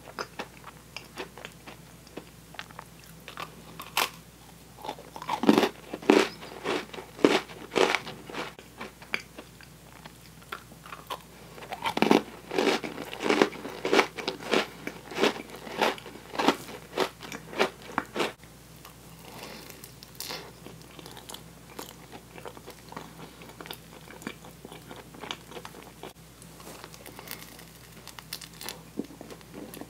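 Close-up biting and chewing of Oreo sandwich cookies: crisp crunches come in two loud runs, one about five seconds in and a longer one about twelve seconds in. Softer, smaller chewing sounds follow in the last third.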